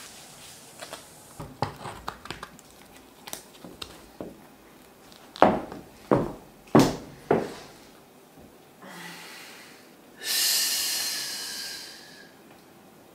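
Clear high-heeled posing shoes striking a hard floor in four quick, loud steps about halfway through, after some softer knocks of shifting about. Near the end comes one long, loud hissing breath out, lasting about two seconds, as she holds a pose.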